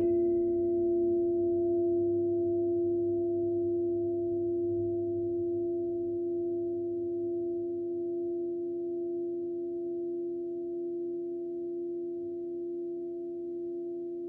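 A singing bowl struck once and left ringing. A strong low tone holds with a few fainter overtones above it. The brightest high overtones die away within a second or two, while the main tone fades only slowly.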